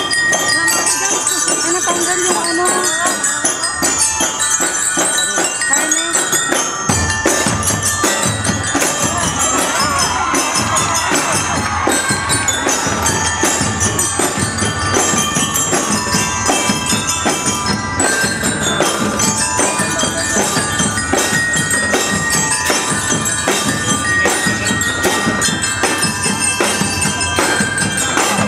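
Drum and lyre band playing: metal-bar bell lyres ring out a melody, and about seven seconds in the drums come in under it with a regular beat.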